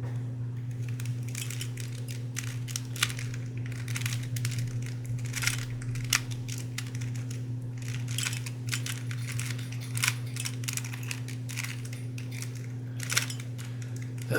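Classic stickered Rubik's brand cube being turned through an algorithm: a run of irregular plastic clicks and scrapes as its stiff layers are forced round, over a steady low hum.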